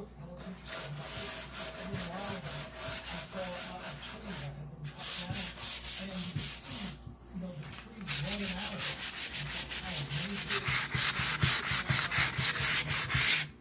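Hand sanding a chalk-painted wooden nightstand with a sanding block, in quick back-and-forth rubbing strokes that get faster and louder about eight seconds in. The paint is being distressed so the black layer shows through, not the wood.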